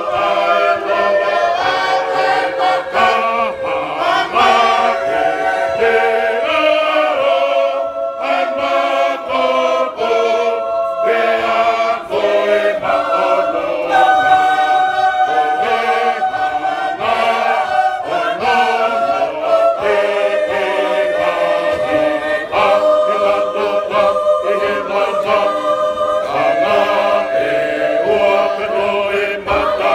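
A large Tongan church choir singing a hymn a cappella, many voices in part harmony, with held chords that change every second or two.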